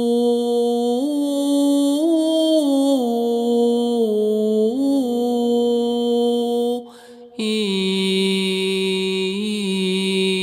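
A single voice toning a slow, wordless melody: long held notes that step up and down. There is a short breath about seven seconds in, and then a lower held note.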